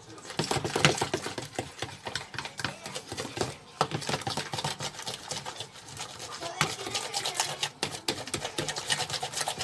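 Hand-beating egg yolks, sugar and cornstarch in a plastic tub for pastry cream: a rapid, steady clicking and scraping of a metal utensil against the tub's sides and bottom.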